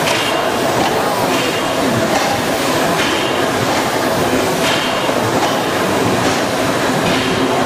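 Stationary mill engines running: a steady mechanical clatter, with a brighter hissing sound coming back roughly every second and a half.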